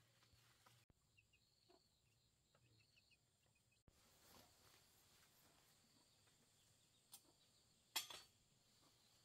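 Mostly near silence, with faint rustling of leafy vines and bamboo being pulled by hand, and a short crackle of brush near the end.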